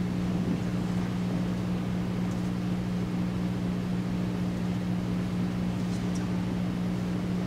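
Steady low electrical hum of the room, a few fixed low tones over a dull rumble. Faint rustles of turnout gear and a flash hood being handled twice.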